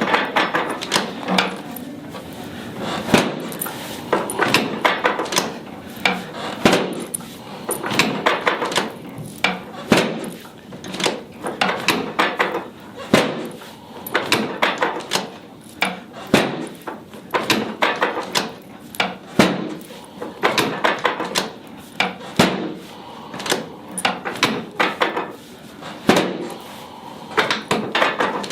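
Chiropractic drop table's spring-loaded segment repeatedly dropping under quick thrusts, a long series of sharp knocks in irregular runs. These are drop-technique adjustments along the low back.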